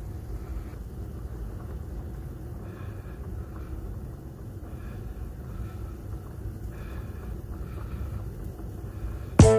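Steady low background rumble with a few faint, patchy higher sounds. Loud music with sharp plucked notes cuts in right at the end.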